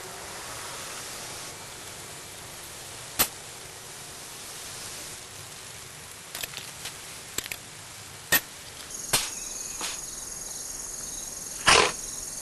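Sharp clicks and knocks of tools and metal parts as a homemade HHO electrolysis cell is taken apart: about seven separate strikes, the loudest near the end. A steady high trill sets in about nine seconds in.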